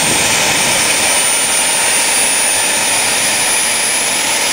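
Model jet's miniature gas turbine running on the ground with a loud, steady roar and a high whine that creeps up slightly in pitch, then holds.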